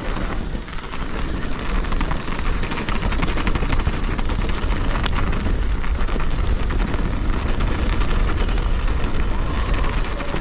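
Wind buffeting the microphone at speed, with mountain-bike tyres rolling over a dirt trail and the bike rattling over bumps in many small clicks.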